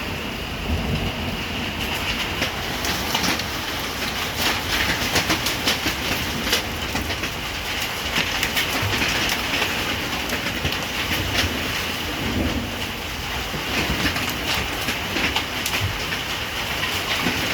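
Heavy summer rain falling steadily, with many sharp drop hits on nearby surfaces sounding over a continuous hiss.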